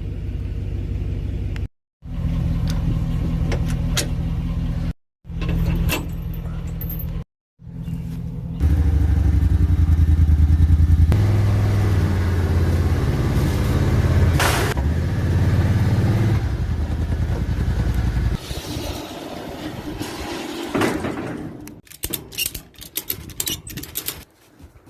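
A vehicle engine running at low speed as the vehicle is moved. It grows louder and works harder for about ten seconds in the middle, then drops back. The sound cuts out abruptly three times in the first eight seconds.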